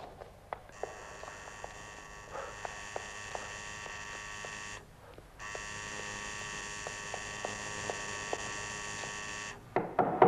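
Electric door buzzer held down twice, about four seconds each, with a half-second break between. Footsteps on stairs sound at the start, and a few knocks come near the end.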